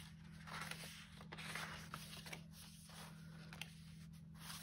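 Paper pages of a handmade art journal being turned and handled, rustling and brushing in several soft swishes, over a steady low hum.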